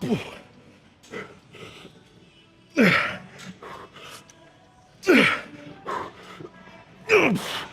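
A man's loud, forceful exhales, four of them about two seconds apart, each sliding down in pitch: straining breaths through heavy lifting reps.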